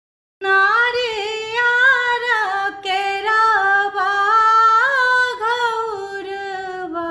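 A woman singing a Chhath folk song unaccompanied, starting about half a second in with long, ornamented held notes that slide and waver in pitch.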